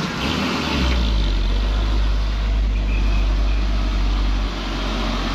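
Diesel engine of a loaded fuel tanker truck working hard at low speed up a steep climb, a loud deep drone that eases off about four and a half seconds in as the truck passes. Its heavy black exhaust smoke shows the engine is under full load.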